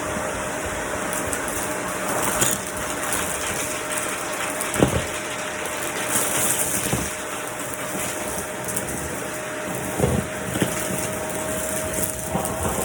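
Vacuum cleaner running: a steady rushing noise with a thin motor whine held at one pitch, broken by several sharp knocks, the loudest about five seconds in.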